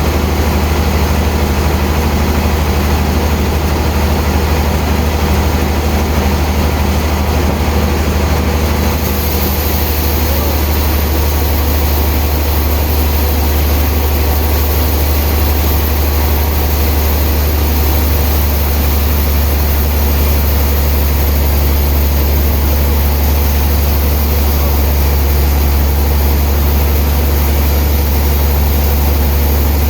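Heavy sawmill machinery running with a steady, loud low drone. A faint high hiss joins about nine seconds in.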